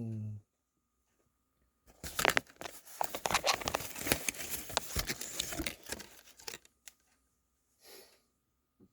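Sock packaging being torn open and crinkled, a dense crackle lasting about four seconds that starts about two seconds in, then a brief faint rustle near the end.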